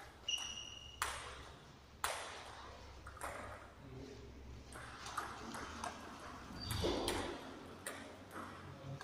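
Table tennis ball knocking off bats and the table in a rally: sharp clicks roughly a second apart, each with a short echo, and a brief high ring after the first hit.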